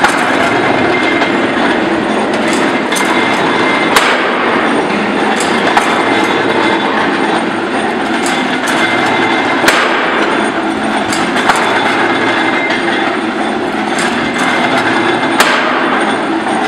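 Charcoal briquette press running: a steady mechanical clatter with frequent sharp clicks and knocks, a few louder knocks standing out.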